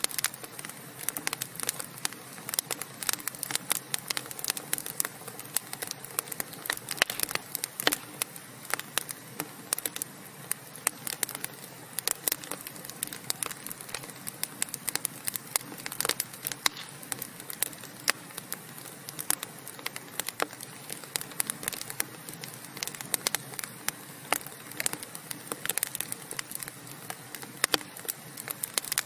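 Wood fire burning in a fireplace, with many sharp, irregular pops and crackles from the burning logs over a steady soft hiss.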